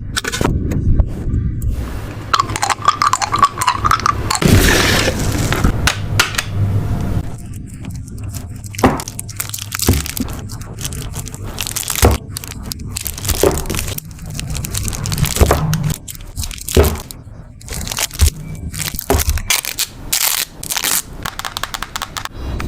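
Crackling, crinkling and clicking of paper and plastic being handled for journaling, with many short, sharp clicks at irregular intervals.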